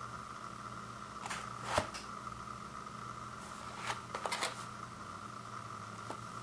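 Cardboard pizza box being handled: a few sharp taps and rustles, about two seconds in and again around four seconds, over a steady hum.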